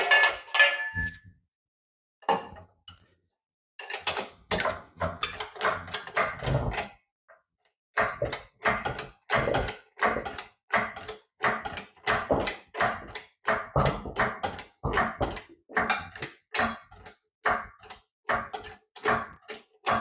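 Floor jack being pumped by hand: rhythmic metal clanks, about two strokes a second, with a few irregular knocks before the steady pumping starts.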